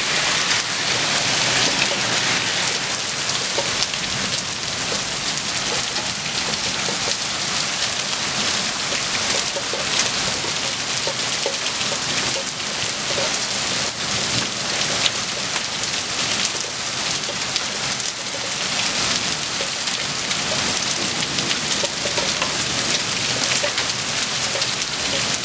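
Heavy thunderstorm downpour mixed with marble-sized hail: a steady dense hiss of rain dotted with many small, sharp hits.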